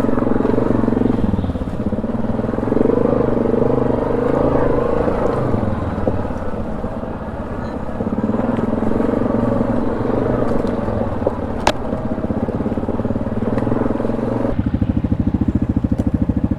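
ATV engine running at low speed over a rough wooded trail. There is one sharp crack about twelve seconds in. Near the end the engine settles into an even, pulsing idle.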